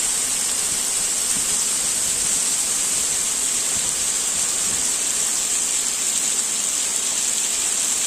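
Large seasonal mountain waterfall in full spate from snowmelt: water falling from a rock cliff with a steady, loud rush of noise.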